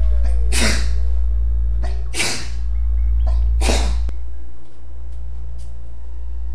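A man sneezing three times, about a second and a half apart. Each sneeze is a short rising 'ah' followed by a sharp burst. A steady low hum runs under them.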